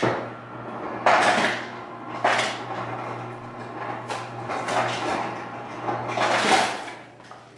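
Ice being fetched from a freezer: a door or drawer opening and closing and ice rattling, in several separate bursts, over a steady low hum that stops near the end.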